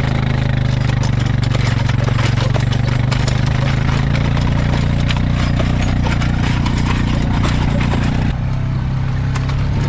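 A farm vehicle's engine running steadily while it drives, with a broad rush of driving noise over its low hum; the noise eases a little about eight seconds in.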